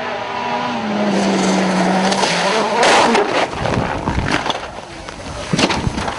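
Citroën DS3 WRC rally car's engine running hard, then a loud crash about three seconds in as the car leaves the road. Crunching impacts and knocks follow as it tumbles, with a few more thuds near the end.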